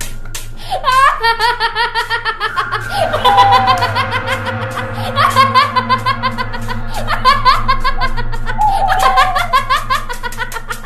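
A kuntilanak ghost's shrill, high-pitched woman's cackle, repeated in several long rapid runs, over background music.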